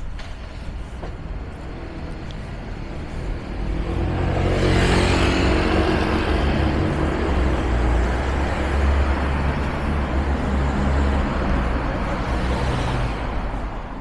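Street traffic at a crosswalk: a motor vehicle's engine grows loud about four seconds in and runs steadily with a deep rumble, then fades out near the end.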